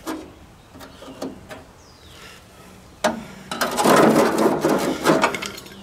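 Light knocks, then about three seconds in a loud rough scraping and rattling for about two seconds as the rusted sheet-metal cover on top of a John Deere 112 mower deck is worked loose by hand.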